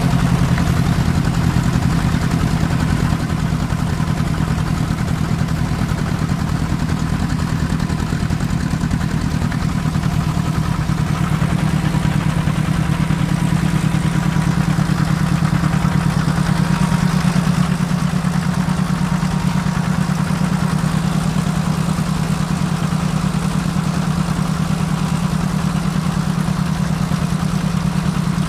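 Engine of a small narrow-gauge rail snow plow running steadily under load as its blades push snow off the track, with a fast, even pulse and some mechanical clatter.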